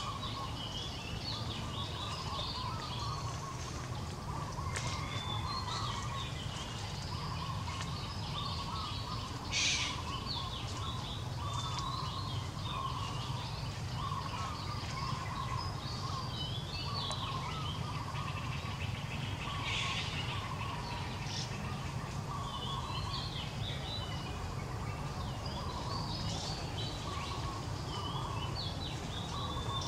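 Wild birds chirping and calling continuously over a steady low background rumble, with a brief louder hissing noise about ten seconds in and again near twenty seconds.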